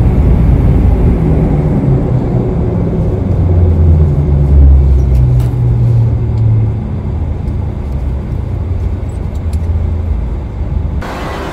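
Cabin noise of a DHC8-Q400 turboprop taxiing after landing: a loud low rumble from its two Pratt & Whitney PW150A engines and propellers, with a droning tone that swells and then eases off over the middle seconds. Near the end the noise changes abruptly to a brighter hiss.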